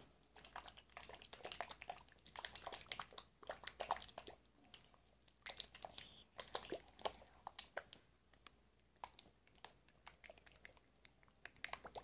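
Small plastic slime pod holding slime powder and water, shaken by hand: faint, irregular clicking and rattling.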